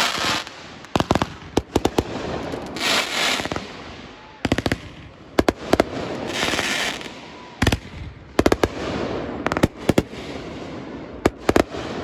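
Fireworks display: aerial shells bursting with sharp bangs, many of them in quick pairs or clusters, between three roughly one-second rushes of hiss.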